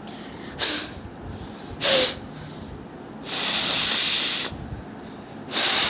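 A woman forcefully blowing air out through her nose: two short hissing blows, then one long blow of about a second, then another short one. She says she has no cold, so these are dry blows with nothing to clear.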